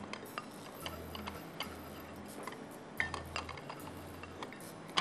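Faint, scattered clicks and light taps of kitchen utensils against a bowl as sugar is measured out, over a low hum.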